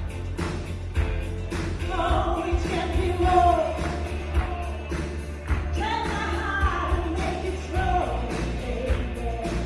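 A woman singing a pop song into a microphone over a backing track with a steady beat and heavy bass; her voice comes in about two seconds in.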